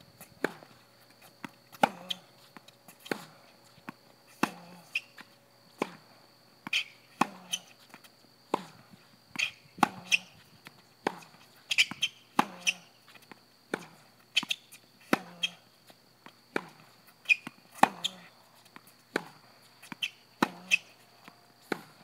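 Tennis ball being hit back and forth on a hard court: sharp pops of racket strikes alternate with ball bounces, about one impact every half second to a second. A faint steady high-pitched tone runs underneath.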